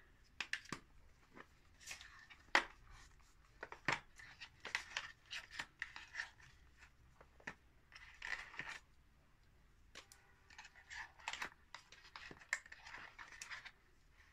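Cardboard smartphone box being handled and unpacked: the inner box and tray rustling and scraping, with irregular light taps and clicks as parts are lifted out and set down.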